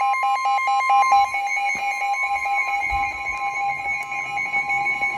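NOAA Weather Radio alert tones from more than one receiver at once: long steady alarm tones at different pitches overlapping, with a fast on-off beeping that stops about two and a half seconds in. The tones announce a marine warning.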